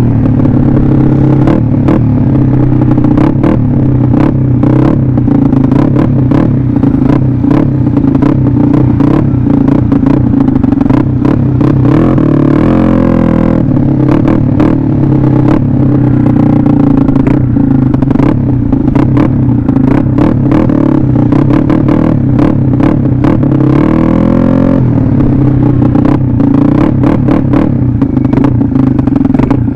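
Yamaha Mio Sporty scooter's single-cylinder engine running under way, heard from the rider's seat with rough crackling from wind on the microphone. About twelve seconds in the engine note drops as the scooter slows, then climbs again as it picks up speed, and it dips and rises once more later on.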